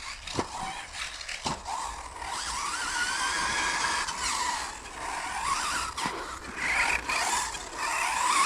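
Brushless electric motor of a Hobao Hyper 10TT 1/10 RC truggy whining as it speeds up and slows down, its pitch rising and falling, with tyre noise on carpet and a few sharp clicks.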